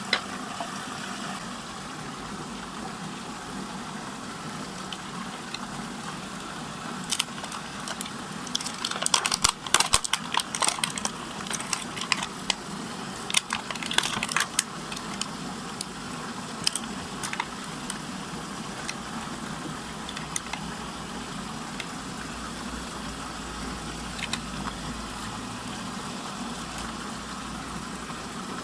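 Steady rush and hum of the machine-driven water whirlpool, with a burst of sharp plastic clicks and rattles from about seven to fifteen seconds in, and a few more later, as small plastic puzzle toys are handled.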